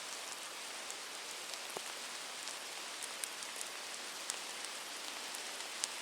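Rain coming down steadily, a dense hiss with sharp ticks of single drops striking here and there.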